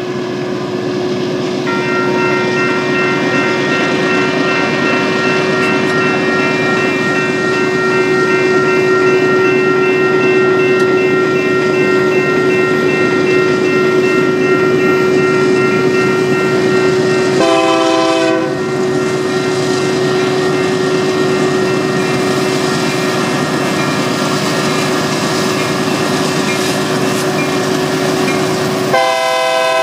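Union Pacific diesel locomotives approaching with their rumble building. A multi-chime air horn sounds a short blast about two-thirds of the way in and starts another blast near the end. From about two seconds in, a grade-crossing warning bell rings steadily.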